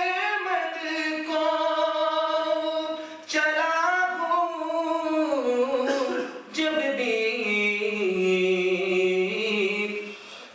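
A man singing unaccompanied in long, drawn-out melodic phrases. There are three phrases, with short breaks about a third and two thirds of the way in. The last phrase falls to a long, low held note.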